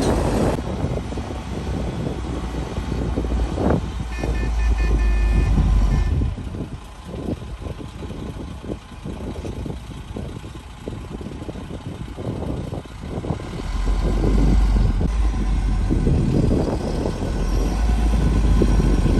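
Heavy diesel earthmoving machinery at work, a bulldozer and dump trucks, with a deep engine rumble that swells twice, first about four seconds in and again in the last few seconds. Between the swells come repeated clanks and knocks. A short run of high-pitched beeps sounds about four to six seconds in.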